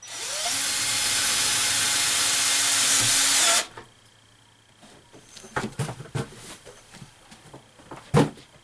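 Power drill driving a self-drilling screw into the screen-door crossbar's mounting bracket: the motor spins up, runs steadily for about three and a half seconds, then stops abruptly. Then come a few light knocks and taps of handling, with a sharper knock near the end.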